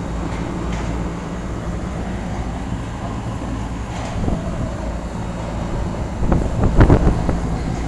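Lennox Merit Series 1.5-ton heat pump running in cooling mode: a steady hum from the compressor and the condenser fan. A few brief louder knocks or rustles come near the end.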